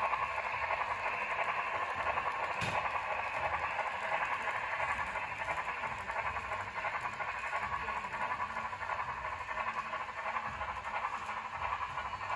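Sound decoder of an HO-scale Union Pacific steam locomotive playing a steady steam hiss through its small onboard speaker, with a single click about two and a half seconds in.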